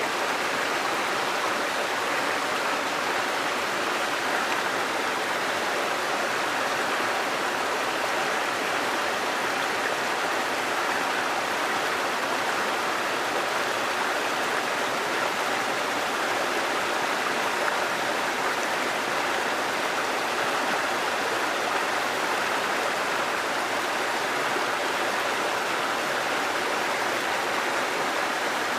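Running water of a stream, a steady, even rush that does not change.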